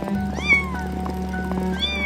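A cat meowing twice, two short calls that rise and then fall in pitch, the first one louder, over background music with steady held notes.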